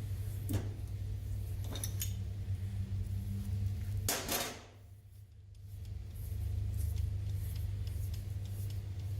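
Light metallic clicks and clinks of small parts or tools being handled, over a steady low hum. About four seconds in there is a louder brief rush of scraping noise, and then the sound drops away for about a second.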